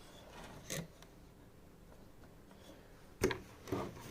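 A few clicks and knocks from handling computer parts and plugging in cables, against quiet room tone: a small click about a second in, then the loudest knock about three seconds in and a lighter one just after.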